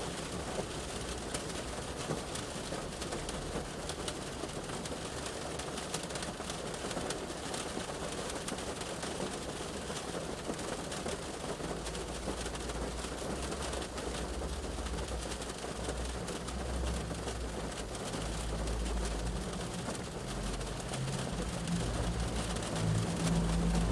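Rain shower falling steadily on a car's roof and windows, heard from inside the car. The low rumble of passing traffic joins in about halfway through.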